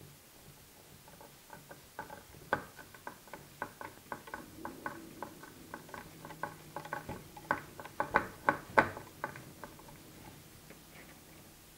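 Hand screwdriver driving small screws into the wooden footrest of a spinning wheel: a run of quick, irregular clicks, several a second, that build to the loudest ones about eight to nine seconds in and stop shortly before the end.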